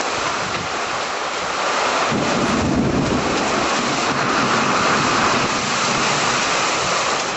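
Heavy rain pouring down steadily in a severe thunderstorm, with a low rumble of thunder building about two seconds in and rolling on for a few seconds.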